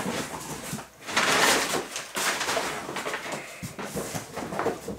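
Cardboard shipping box being opened by hand: rustling and scraping of cardboard and packing, with a longer scraping noise lasting about a second, starting about a second in.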